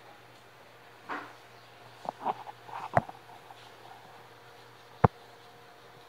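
A baby Indian ringneck parakeet making a few soft, short chirps, with two sharp knocks about three and five seconds in, the second the loudest, over a steady low hum.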